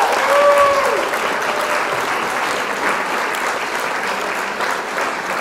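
Crowd applauding, with a whoop or two of cheering in the first second; the clapping slowly gets quieter.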